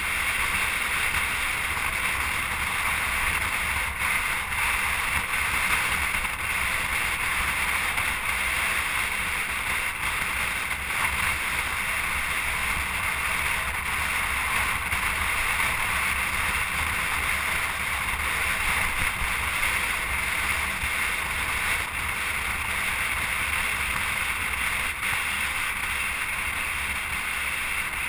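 Steady rush of wind on the microphone over continuous road noise with a low rumble, as from a camera moving along a road.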